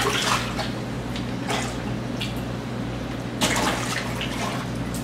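Aquarium water splashing in several short bursts as peacock bass strike at the surface during a feeding, the biggest splash about three and a half seconds in. A steady low hum runs underneath.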